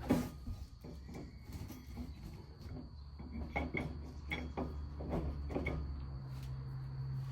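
Scattered light metal clunks and taps as a Volkswagen flywheel is handled and seated onto its crankshaft dowel pins. A low steady hum comes in about three seconds in.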